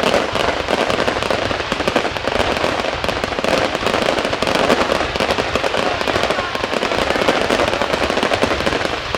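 Fireworks display: a dense, continuous crackle and popping of many overlapping bursts, with no let-up.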